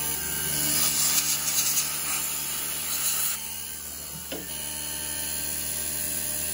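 Taig CNC mill running with a steady motor whine while a brush scrapes and rustles through the aluminium chips on the part for the first three seconds or so, followed by a single sharp knock about four seconds in.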